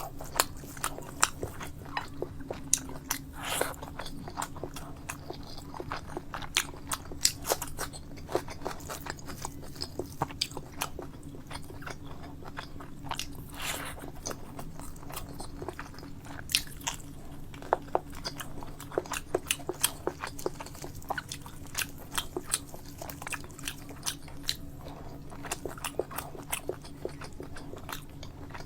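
Close-miked eating: a person chewing and biting a curry and rice meal, with many sharp, irregular mouth clicks and crunches. A steady low hum runs underneath.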